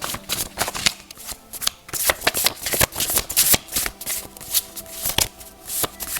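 A deck of oracle cards being shuffled by hand: a quick, irregular run of card flicks and snaps.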